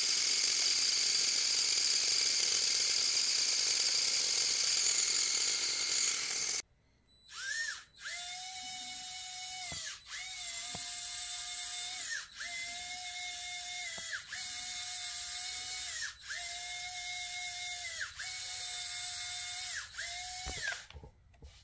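Electric motors and plastic gears of a motorized Lego Technic material handler running. A steady, hissy whir cuts off about seven seconds in. After a short pause, a motor whine comes in repeated runs about two seconds long, each rising at the start and dropping at the end, with brief breaks between.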